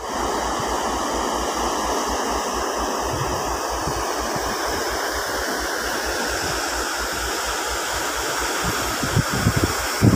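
A cruise ship's churning wake, a steady rush of water heard from high on the stern. Wind buffets the microphone in low thumps under the rush, more strongly near the end.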